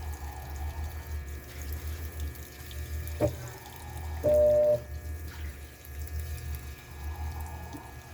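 Washing machine filling with water: water running into the drum over a low pulsing hum. There is a sharp click about three seconds in and a short steady beep about halfway through.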